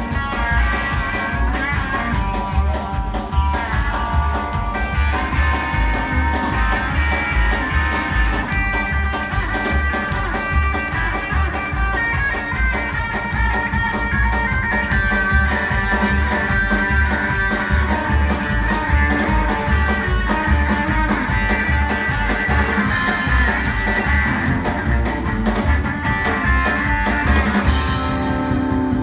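Rockabilly band music with no vocals: guitar lines over a fast, steady bass and drum beat.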